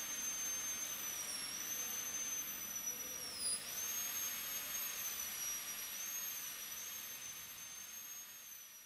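High-speed air-turbine dental handpiece running with a steady high whine over a hiss of air, cutting a plastic tooth on a training model. Its pitch dips briefly about three times, most deeply a few seconds in, as the bur bites and slows under load. The sound fades away near the end.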